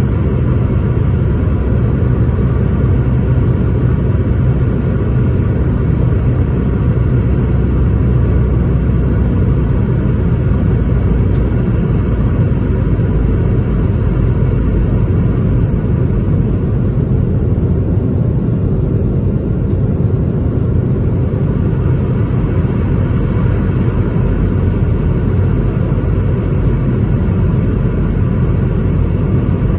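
Steady low rumble of a passenger jet's engines and airflow during the approach to landing, unchanging throughout.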